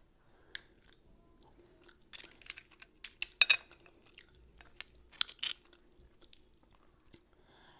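A person chewing a mouthful of pasta with clams and scallops close to the microphone: soft, scattered mouth clicks and smacks, in small clusters.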